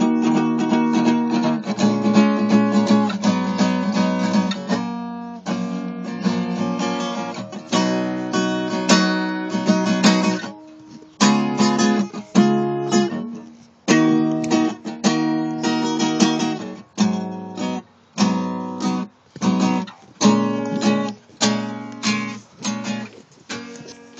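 Acoustic guitar being strummed. The first half has full, ringing chords; from about halfway through it turns to short, choppy chords that are cut off between strokes.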